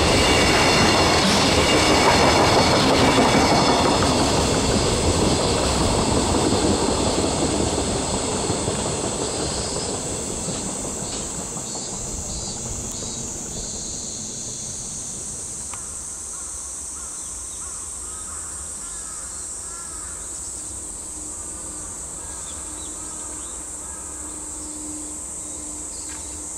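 A long freight train of container wagons rolls past on the rails, loud at first, then fading away over about ten seconds as the last wagons clear. A steady high insect drone remains.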